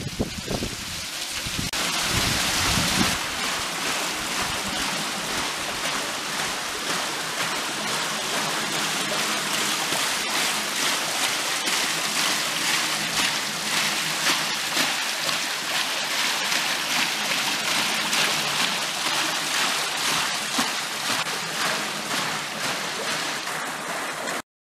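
Water pouring from a wooden flume onto a turning wooden overshot waterwheel and splashing off its buckets: a steady rushing and splattering that cuts off suddenly near the end.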